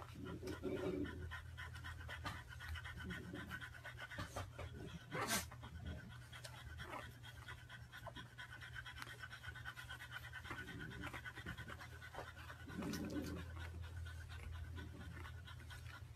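French bulldog panting in short bouts of breaths, over a steady low hum, with one sharp click about five seconds in.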